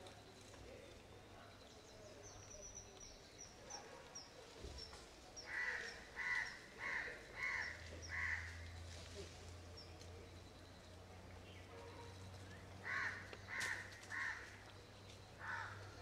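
Crow cawing: a run of five harsh caws about half a second apart, then three more and a last single caw near the end. A series of thin, high bird notes comes before the caws.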